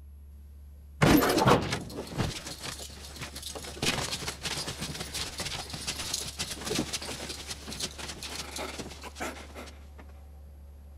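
A gallows trapdoor springs open with a loud bang about a second in, as the condemned drops on the rope. Several seconds of irregular rattling and scuffling follow while the hanging body swings and a guard grabs hold of it, stopping near the end.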